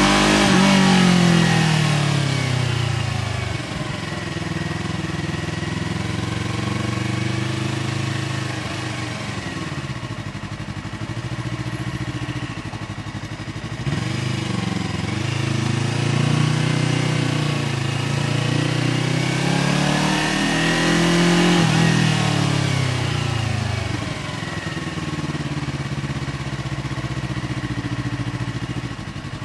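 Yamaha R3 parallel-twin engine running through an aftermarket SC Project exhaust while riding: the revs fall off in the first few seconds, hold fairly steady, climb steadily through the middle of the stretch, then drop back and settle.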